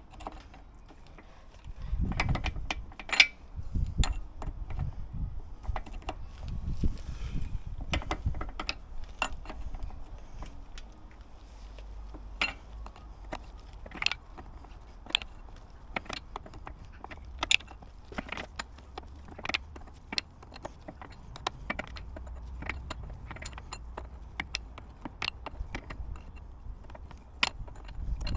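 Metal tools and parts clinking and knocking at irregular intervals, with heavier low thuds over roughly the first eight seconds.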